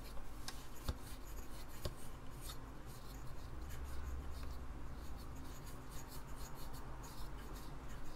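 Hands handling the parts of an opened Apple Disk II floppy drive mechanism: light rubbing and scattered small clicks as parts are pressed and fitted into place.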